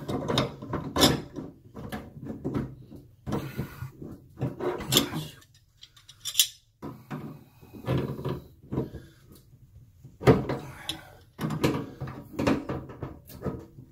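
Channel-lock pliers working the drain strainer nut under a kitchen sink, tightening it: irregular metallic clicks, scrapes and knocks with short pauses between turns.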